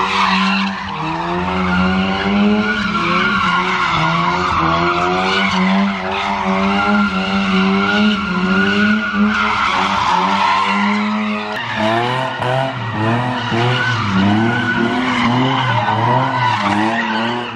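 A car's engine revving up and down hard while its tyres squeal continuously, as in donuts or a drift on a car-meet lot. About twelve seconds in the revs drop lower and pulse in quick surges.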